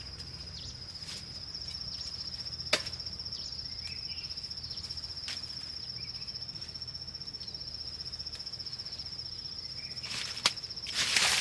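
An insect trilling steadily at a high pitch, with three sharp knocks a few seconds apart and a rustle near the end.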